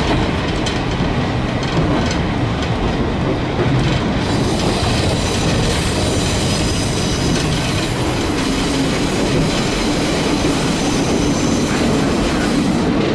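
Diesel railcar running at speed, heard from inside the carriage: a steady rumble of wheels on rail with some clickety-clack, and a thin high wheel squeal through the middle part.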